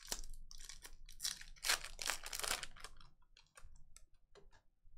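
Foil wrapper of a trading-card pack crinkling and rustling in hands as the cards are pulled out of it, a crackly run for about the first three seconds, then a few light clicks and taps as the cards are handled.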